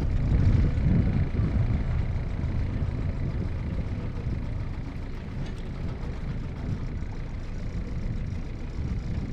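A fishing boat's motor running steadily: a low, even rumble.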